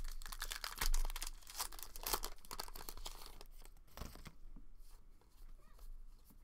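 Foil wrapper of a 2020 Topps Gypsy Queen baseball card pack being torn open and crinkled: a dense crackling for the first three seconds or so, loudest about a second in. After that come softer rustles and a light knock as the cards are pulled out and handled.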